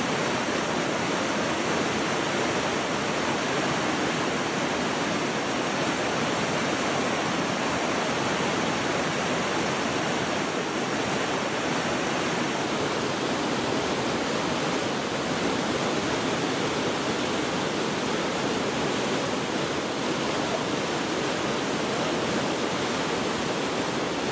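Vickery Creek waterfall: water rushing steadily and evenly.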